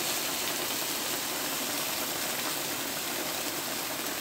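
Diced chicken thighs sizzling steadily in a hot pan as they brown.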